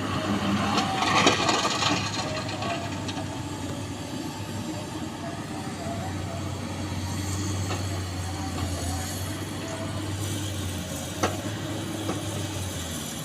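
Excavator diesel engine running steadily under load, with a loud rattling clatter of small stones about a second in and a single sharp knock near the end.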